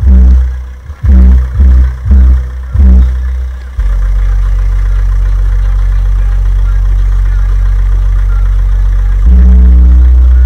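Pioneer TS-W307D2 12-inch subwoofer in a car playing a bass-heavy track loudly: short punchy bass hits, about two a second, for the first few seconds, then a steady deep bass tone that gets louder near the end.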